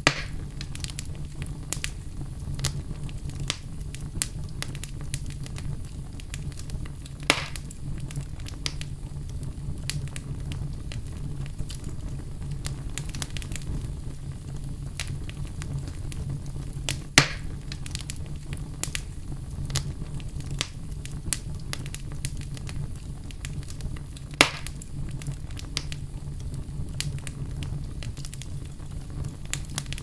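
Wood logs burning in a fireplace, crackling steadily with many small snaps and four louder pops spread through, over a steady low rumble.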